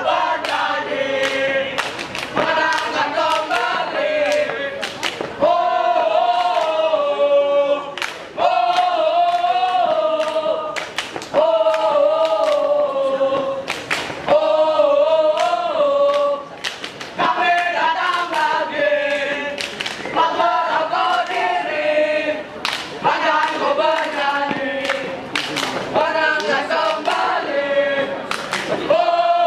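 A group of young scouts singing a scout yell (yel-yel) together in unison, in short sung phrases of two to three seconds with brief breaks between them, punctuated by many sharp percussive hits.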